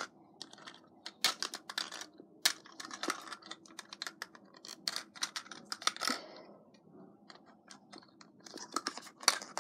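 Irregular clicks, taps and short crackles of a plastic LOL Surprise toy ball and its small packaging being handled, as she tries to get a piece out of it.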